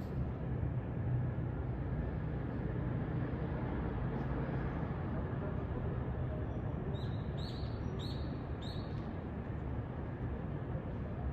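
Steady low rumble of distant city traffic across an open rail yard. About two-thirds of the way in come four short, high bird chirps, roughly half a second apart.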